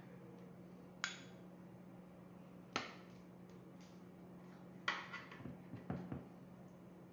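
Metal spoon knocking and scraping against a glass baking dish while spreading meat sauce: sharp clinks about one second in and near three seconds, then a quick cluster of knocks and scrapes around five to six seconds, over a steady low hum.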